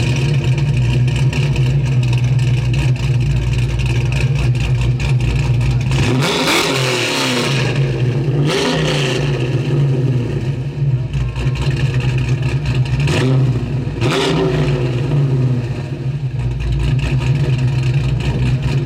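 A car engine running steadily and revved up and let fall back four times, the first and longest rev about six seconds in.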